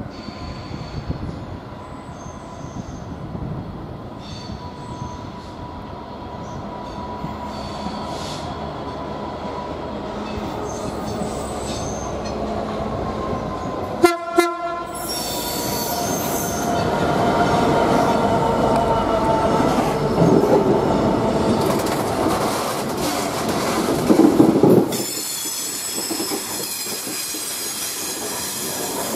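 Freightliner diesel locomotive heading an engineering train; its engine grows louder as it approaches. About halfway through it sounds a short horn blast, then runs past at its loudest. Near the end the wagons roll by with a high wheel squeal and a steady clatter over the rail joints.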